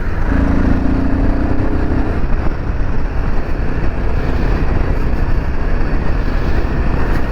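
Royal Enfield Himalayan 450's 452 cc single-cylinder engine running as the bike rides along, with heavy wind and road noise. A steady engine tone stands out for the first two seconds, then the wind rush covers it.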